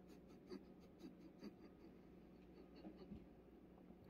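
Faint scratching and light ticks of a cat's claws pawing at a carpet-covered cat tower.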